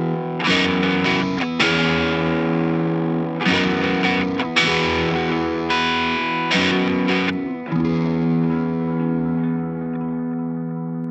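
Distorted electric guitar playing a series of chords with short stops between them. Near the end a last chord is left ringing and slowly dies away as the song ends.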